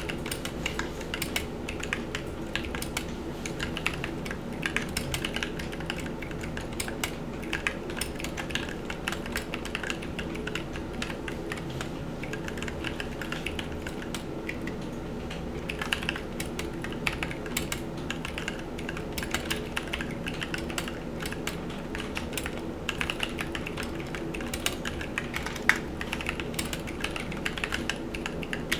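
Continuous typing on a Drop Carina mechanical keyboard with lubed and filmed Durock T1 tactile switches, on an aluminium plate with plate foam in a frosted acrylic case. One keystroke is sharper than the rest near the end. A steady office fan hums underneath.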